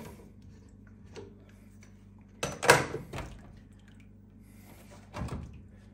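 Plastic lid and circulator collar being taken off a plastic sous vide water-bath container: a loud clatter about two and a half seconds in lasting under a second, then a duller knock near the end.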